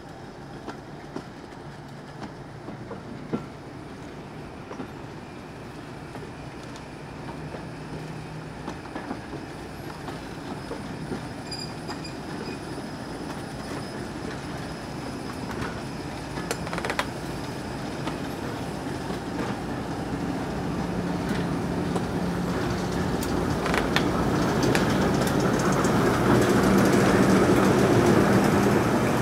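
A diesel train approaching, its engine's low steady hum growing louder through the stretch, with scattered sharp clicks from the wheels on the track.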